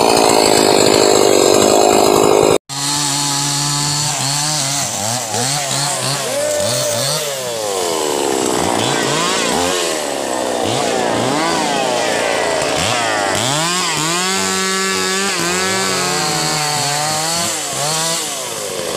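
Chainsaw cutting teak wood, the engine pitch rising and falling again and again as it revs into and out of the cut. It is loud throughout and breaks off sharply for a moment about two and a half seconds in.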